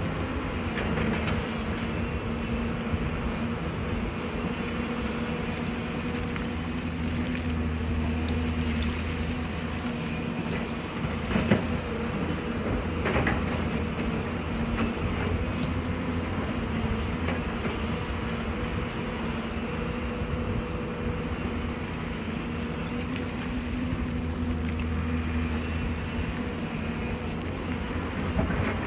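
Excavator's diesel engine running steadily, with a few sharp knocks about halfway through.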